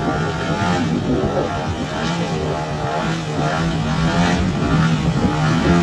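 GP123 gasoline engine with tuned exhausts driving the propeller of a large RC Extra 330LX holding a nose-up prop-hang hover. Its pitch wavers up and down as the throttle is worked to hold the plane in place.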